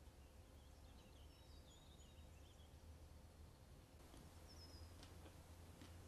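Near silence: faint room tone with a steady low hum, a few faint high chirps in the first half and a couple of faint clicks near the end.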